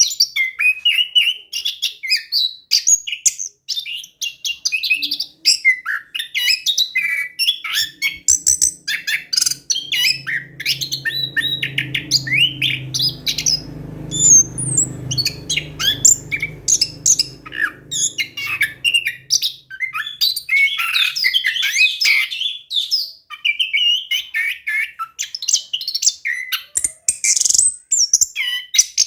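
Orange-headed thrush singing a fast, varied, unbroken song of chirps, whistles and rolling trills. A faint low hum runs under the song through the middle.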